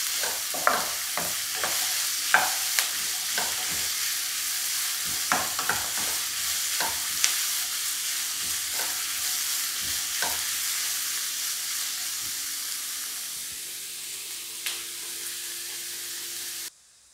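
Sliced onions, shallots and green chillies sizzling in oil in a wok as they are sautéed until soft, with a wooden spatula scraping and tapping against the pan. The stirring stops about two-thirds of the way through, leaving the steady sizzle, which cuts off suddenly just before the end.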